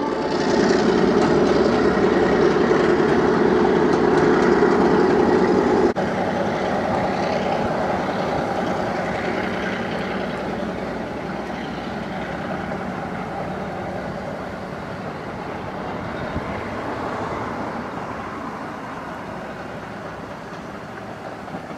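Diesel-hauled heritage passenger train running: locomotive and carriages rolling along the track, steady for the first six seconds, then after an abrupt change quieter and slowly fading as the train draws away.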